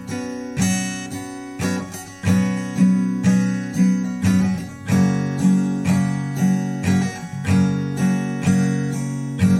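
Acoustic guitar strumming chords in a steady rhythm, about two strokes a second: the instrumental intro of a song.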